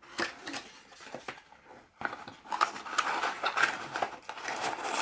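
Cardboard box and paper packaging being handled: rustling, scraping and small knocks as the wrapping is pulled out of the box, busier from about two seconds in.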